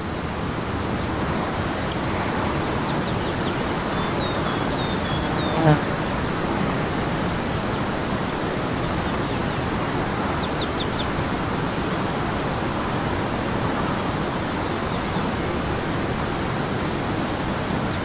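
Chuya mountain river rushing steadily. A high, thin insect trill comes in about ten seconds in, and small birds chirp briefly now and then. A short, sharp sound about six seconds in is the loudest moment.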